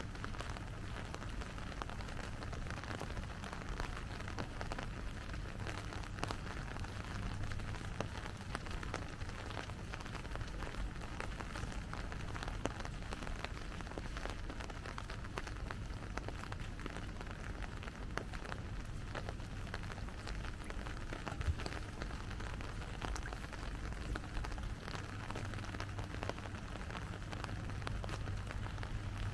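Steady rain falling and pattering, with many small drop ticks and a low, steady rumble underneath.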